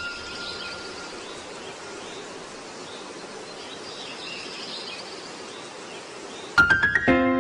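Steady hiss of background noise with faint high chirps, like birds or insects. About six and a half seconds in, a quick rising run of notes starts a piece of music.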